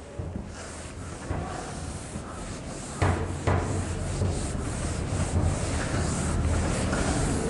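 Whiteboard eraser rubbing across a whiteboard in repeated quick wiping strokes, with a couple of sharper knocks about three seconds in.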